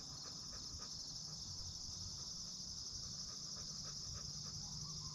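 Crickets and other insects chirping in a steady, high-pitched chorus of fast trills.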